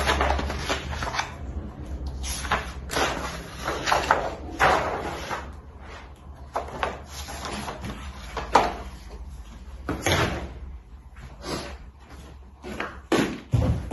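Rustling and sliding of a stiff paper sheet and a card mat being lifted out of a large picture frame, with irregular scrapes and light knocks as they are handled and set down.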